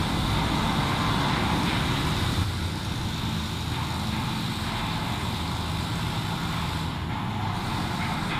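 Steady mechanical noise on board a ship, a low rumble with a hiss over it, with no distinct strokes or beats.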